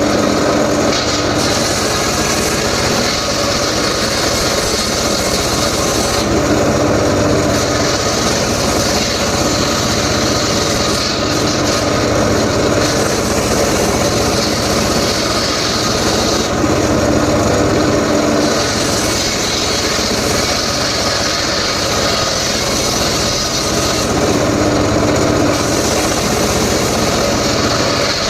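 A power saw cutting mahogany wood, running steadily throughout. A harsh, high cutting hiss swells for several seconds at a time and eases in between, when a steadier hum comes through.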